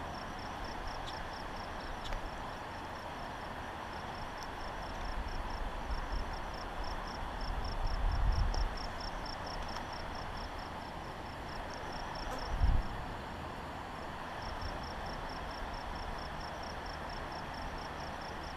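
An insect chirping in a steady, high, pulsed trill, several pulses a second with a couple of brief pauses, over a steady outdoor hiss. Two low rumbles come through, a longer one around the middle and a short one about two-thirds of the way in.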